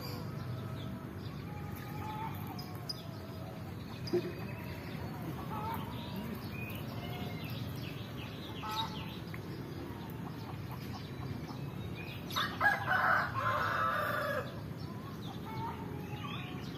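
A rooster crows once, about twelve seconds in, lasting about two seconds and louder than anything else, over small birds chirping on and off.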